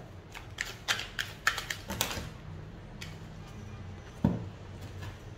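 A deck of tarot cards shuffled by hand: a quick, irregular run of card clicks and snaps through the first two seconds, then one sharp thump a little over four seconds in.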